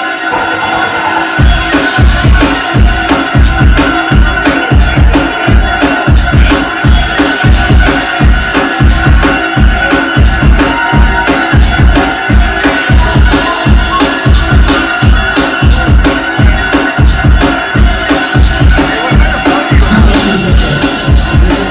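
Drum and bass music: sustained electronic tones, joined about a second and a half in by a fast, heavy, even bass-drum beat.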